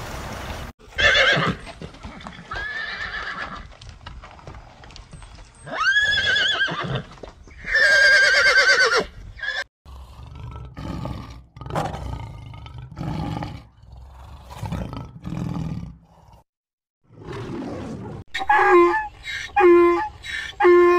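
A run of loud animal calls, several short cries in separate cut-together clips with sudden breaks between them. The longest calls waver in pitch, and a quick series of repeated cries comes near the end.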